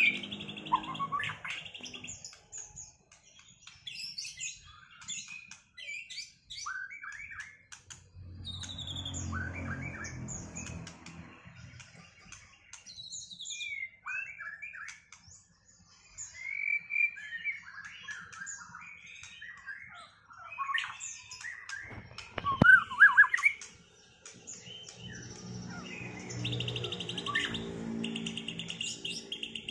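White-rumped shamas singing in a duel, a varied run of short whistles, slurred notes and trills, with a harsher buzzing stretch about eight seconds in and again near the end.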